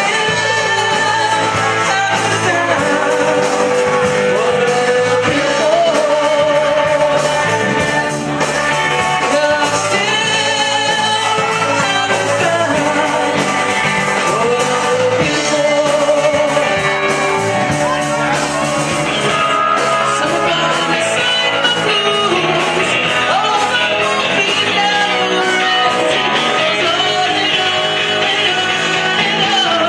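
Live rock band playing: a singer over electric guitar and drums, loud and steady.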